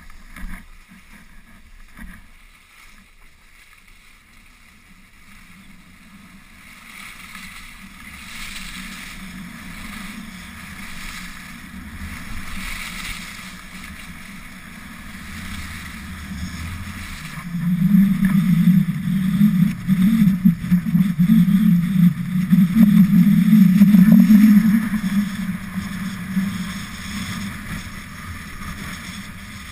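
Skis hissing over groomed snow while wind rushes over the handheld camera's microphone; it grows louder from a little past halfway, with a heavy low rumble of wind buffeting, and eases near the end.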